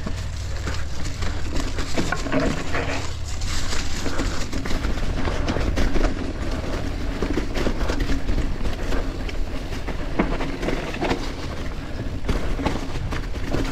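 Mountain bike riding over rough trail: tyres rolling through leaves, dirt and roots, with the bike rattling and clicking over the bumps and a steady low rumble underneath.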